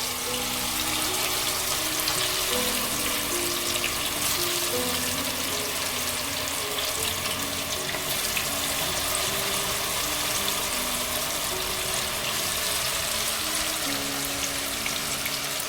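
Masala-coated chicken pieces deep-frying in hot vegetable oil, a steady dense sizzle, with soft background music underneath.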